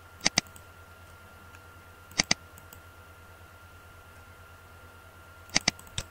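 Computer mouse clicking: three quick pairs of sharp clicks spread a couple of seconds apart, then one more single click near the end, over a faint steady electrical hum.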